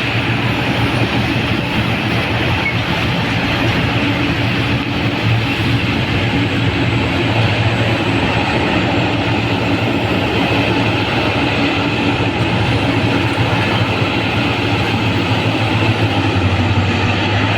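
Liebherr R996 mining excavator running steadily: a continuous loud machine drone with a low hum that swells and eases every few seconds.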